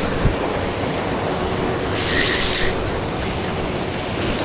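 Spinning reel sounding once in a short mechanical burst, under a second long, about two seconds in, as a hooked nenue is fought on the rod. Surf washes over the rocks throughout.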